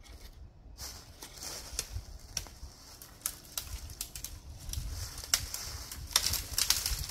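Dry tree limbs dragged and stacked onto a brush pile: twigs scraping and crackling against each other, with footsteps rustling in dry leaves. The crackling is busier and louder in the second half.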